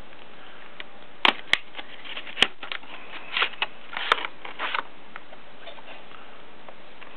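A product box being opened by hand: a few sharp clicks and snaps about a second or two in, then short rustles and scrapes of the packaging being handled.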